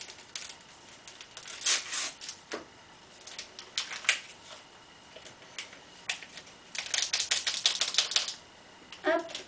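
Small paper packet of baking powder being torn open and crinkled: scattered crisp crackles, then a dense run of quick crackles about seven seconds in as it is tipped over the bowl.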